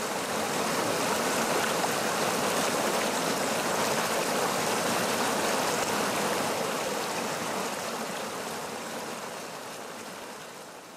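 A small stream rushing over rocks in a low cascade: a steady rush of water that slowly fades down over the last few seconds.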